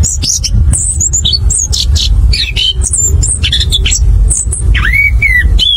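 Chestnut-capped thrush singing a fast, continuous run of varied high chirps and whistles, with a couple of longer slurred whistles near the end. A steady low rumble runs underneath.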